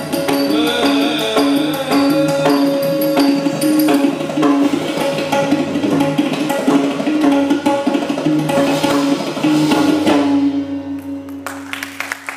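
Live Indian classical ensemble accompanying a dance: tabla strokes over a sustained melody. The piece stops about ten seconds in, leaving a steady drone, and scattered applause starts near the end.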